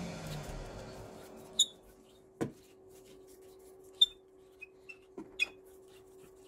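A disc sander winding down to a stop, its falling hum fading out within the first second or so. Then a few sharp, light clicks and taps as a threaded rod with a ball bearing and wooden spacer is handled, over a faint steady hum.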